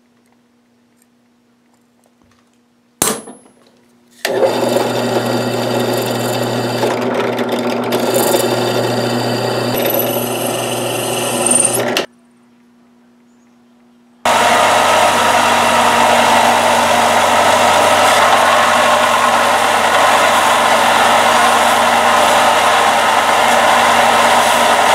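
One sharp hammer blow on a center punch about three seconds in, then a drill running steadily for about eight seconds as it bores holes through a high-carbon O1 steel knife blank. From about fourteen seconds in, a belt grinder runs steadily as the blade is cleaned up on a fine belt before heat treating.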